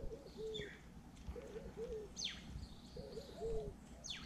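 A dove cooing, three short phrases of a few low coos each, about every second and a half, with twice a quick high whistle sliding downward.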